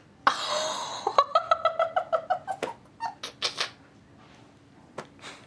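A woman's high-pitched laughter. It starts with a breathy squeal, runs into a quick string of 'ha-ha' pulses, gives a few more gasps of laughter, and then quiets down.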